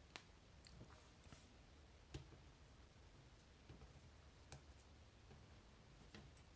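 Faint, sparse clicks of small metal lock parts and tools being handled while a dimple lock is disassembled, about four sharp ticks spread over a few seconds.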